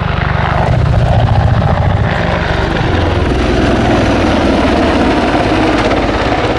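Boeing AH-64 Apache attack helicopter flying low, its rotor beating steadily, getting a little louder about a second in.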